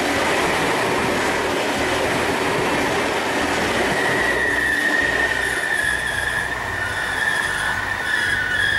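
Double-deck Intercity train rolling past close by, a steady rush of wheels on rails. From about four seconds in, a high, steady wheel squeal sets in over the thinning rolling noise.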